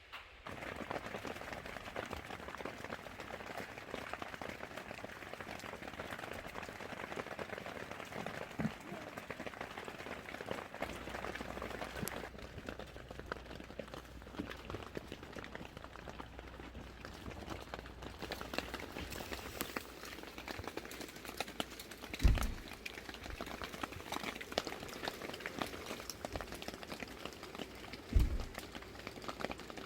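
Rain falling steadily, a dense pattering of drops. Two dull low thumps cut through it, about two-thirds of the way in and again near the end.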